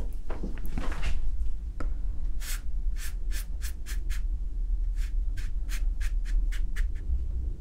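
Large watercolor brush working wet paint over paper: soft scrubbing at first, then a run of quick, short swishes, about three or four a second, from about two and a half seconds in. A steady low hum lies underneath.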